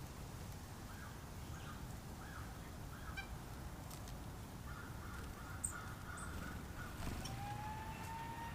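Wild birds calling: single short nasal calls repeated about once every half second to second, then a quick run of the same calls, with a couple of brief high chirps. Near the end a steady, slightly rising tone comes in, over a constant low background rumble.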